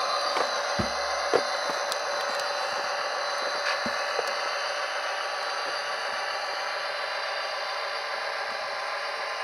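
Tsunami sound decoder in an HO-scale SD45-2 model playing its EMD 645 diesel prime mover sound through the model's small speaker: a steady, thin engine sound with no deep bass, a few light clicks about a second in.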